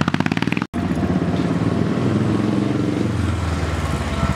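Cruiser motorcycle engine running at low speed with a fast pulsing exhaust beat, its pitch rising and falling a little as the rider moves off slowly. The sound cuts out for an instant under a second in.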